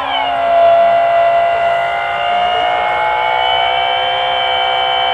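Model aircraft motor running with a steady whine. Its pitch falls back from a brief high swoop at the start, then holds nearly level.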